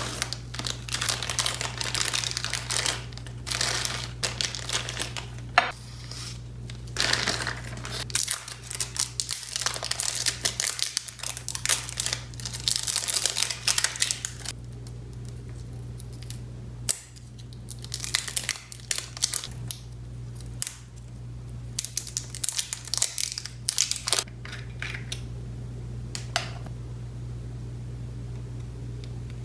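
Plastic zip bags and a padded mailer crinkling and rustling as small jars and bottles of nail gel are unpacked, thinning out about halfway through into scattered light clicks and knocks of the jars and their lids being handled and opened, over a steady low hum.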